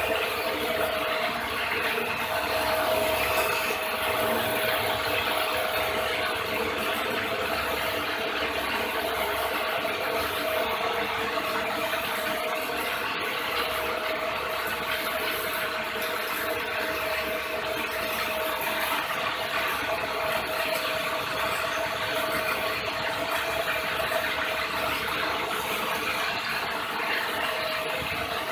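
Belt-driven motor–generator rig running: an electric motor turning a manual gearbox that drives two alternators through V-belts. It gives a steady mechanical whir with a rattle and one steady whine.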